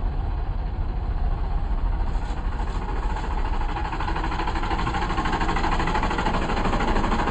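Motor vehicle engine running with a steady low rumble, growing slightly louder over the stretch.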